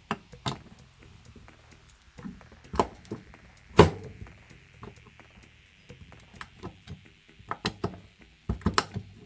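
Irregular knocks and clicks of a screwdriver, ratchet and loose piece of wood being handled, with the loudest knock about four seconds in and a quick cluster of knocks near the end.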